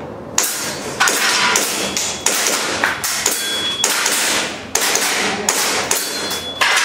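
Airsoft pistol shots fired in irregular quick succession, about a dozen sharp reports, each echoing in a reverberant hall.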